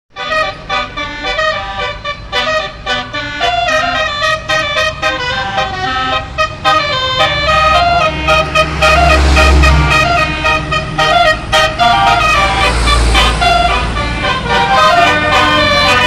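A bus's telolet basuri horn, a set of tuned air horns, playing a fast melody of quick stepping notes. A deep rumble swells twice in the middle.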